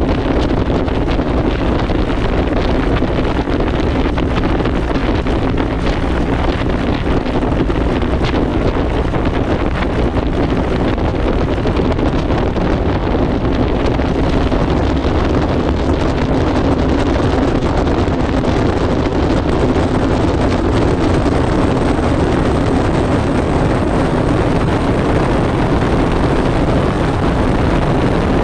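Columbia 400's turbocharged six-cylinder piston engine running steadily while the plane taxis and starts rolling down the runway, with heavy wind noise on the microphone mounted under the fuselage. The noise grows somewhat louder in the second half as the plane gathers speed.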